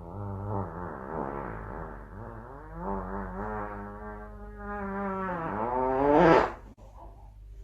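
A long, wavering, drawn-out animal call, like a howl, that dips briefly about three seconds in, then rises to its loudest and stops suddenly about six and a half seconds in.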